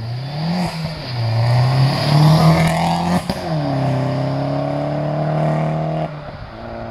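Vauxhall Corsa VXR's turbocharged four-cylinder accelerating hard away, its exhaust note climbing through the revs and dropping at a gear change about half a second in and again at about three seconds, where the change comes with a sharp crack. Near the end the revs and level fall as it lifts off and fades into the distance.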